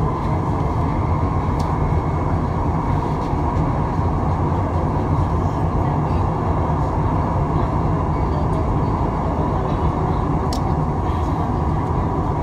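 Ui LRT UL000-series two-car light-rail train running at speed through a tunnel: a steady rumble of wheels on rails, with a faint whine fading in the first second and a few light clicks.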